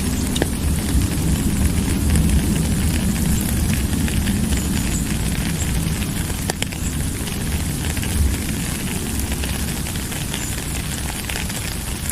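Steady rain falling: a dense, even hiss with a deep low rumble underneath and an occasional sharp click of a drop.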